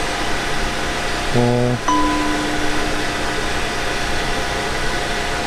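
Edited-in counting sting: a short low chord stab about 1.4 s in, followed by a long held tone and a bell-like ding.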